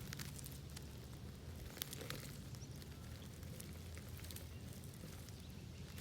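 Faint outdoor background: a steady low rumble with scattered light clicks and crackles.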